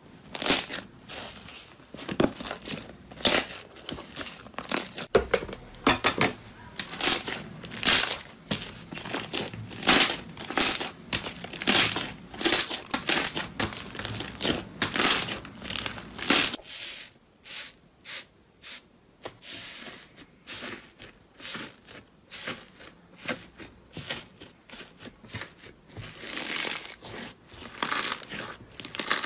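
Slime being handled (squeezed, pressed and pulled), giving a dense run of sharp squelches and pops, one or two a second. About sixteen seconds in it drops to fewer, quieter sounds before picking up again near the end.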